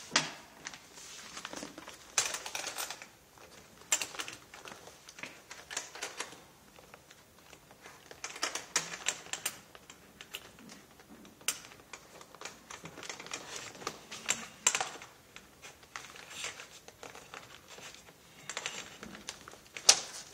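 Large sheet of chart paper being hung on a whiteboard's top rail: the paper rustles, with scattered sharp clicks and taps as it is fastened in place.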